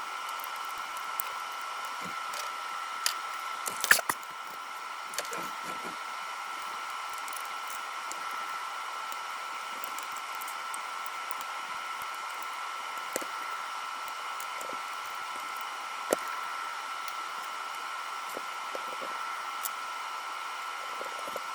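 Steady whine of a small motor-driven fan running, with a few light clicks and knocks of handling; the sharpest knock comes about four seconds in.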